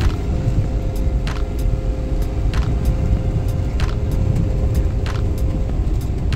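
Steady low rumble of a moving vehicle, with a faint constant hum and a short click about every second and a quarter.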